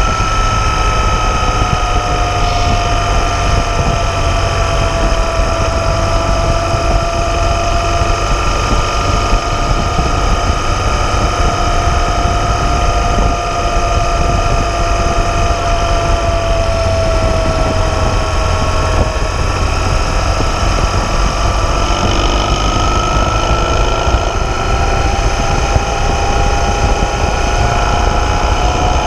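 BMW R 1200 GS flat-twin engine running at a steady cruise, mixed with heavy wind rush on the microphone behind the windscreen. Its faint whine sags slightly about two-thirds of the way through and rises again near the end.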